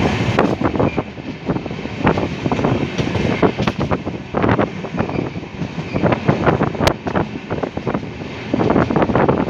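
An express passenger train's running noise heard from inside a coach by the window: wheels clacking and rattling irregularly over the track, with wind buffeting the microphone.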